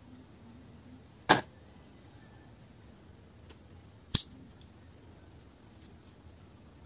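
Two sharp clicks, about three seconds apart, from small metal drill parts and a screwdriver being handled during disassembly. Between them there is only faint background.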